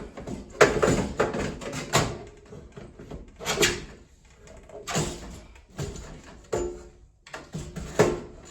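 Sheet-metal knocks and scrapes as the fan-and-heating-element compartment of an Amana PTAC unit is slid and worked out of its housing, a series of irregular clunks, some with a short metallic ring.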